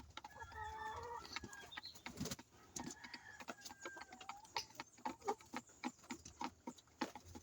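Flock of layer pullets at about 19 weeks clucking softly, with a few short calls in the first second or two and many short clicks and taps throughout.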